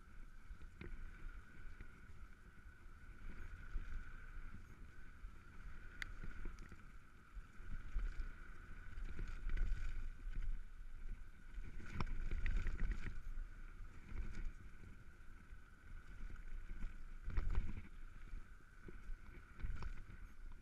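Mountain bike riding fast down a gravel trail, heard from a bike-mounted camera: wind rumbling on the microphone and tyres crunching over gravel, with a steady high whine throughout. The bike knocks and rattles over bumps, hardest a little past halfway and again later on.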